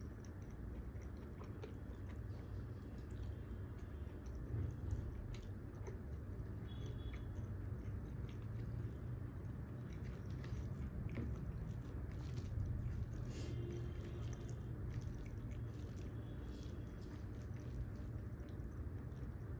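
A person chewing and eating food close to the microphone, with scattered small clicks of bites and mouth sounds over a steady low hum.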